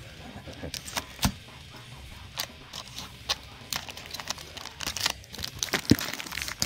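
A knife slitting packing tape on a cardboard box, with scratchy rasps and sharp knocks of the box and tape being handled; the loudest knocks come about a second in and near the end.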